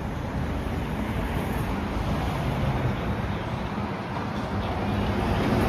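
Steady road traffic noise, growing louder near the end as a vehicle comes closer.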